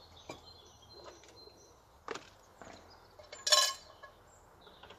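Food containers, a jar and a flask being handled on a wooden bench: a few light knocks and clinks, and one louder, short rustling scrape about three and a half seconds in.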